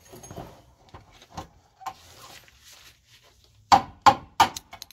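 Long flathead screwdriver prying and tapping at a brittle plastic push-through retainer on the truck's steel frame. Light scraping clicks, then a quick run of sharp metallic knocks near the end, three strong and two lighter.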